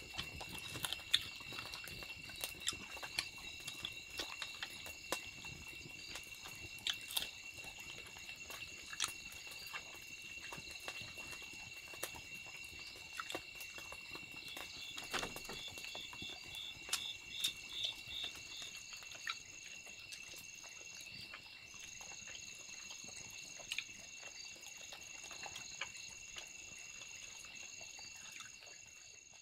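Steady high-pitched chorus of forest insects, one voice pulsing in quick beads for a few seconds near the middle. Irregular clicks and knocks sound throughout.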